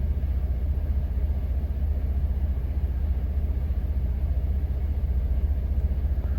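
Semi-truck engine running with a steady low rumble.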